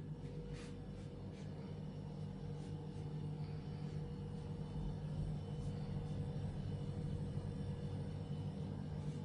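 Steady low hum and rumble with a few faint clicks.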